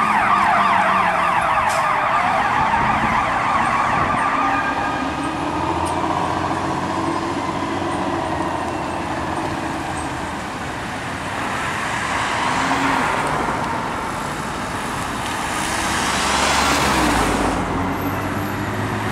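Fire ladder truck's siren yelping in rapid sweeps, then sliding into a long falling wail as the truck moves off, over the sound of city traffic. A vehicle passes close near the end.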